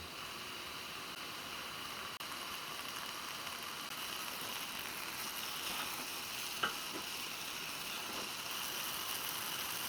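Food cooking with a steady sizzling hiss, with a faint tap about two-thirds of the way through.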